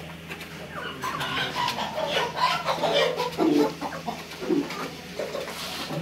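Several chickens clucking irregularly, loudest in the middle seconds, over a steady low hum.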